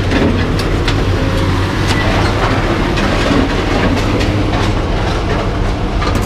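An engine running steadily, with scattered sharp metal clanks and knocks from scrap being handled.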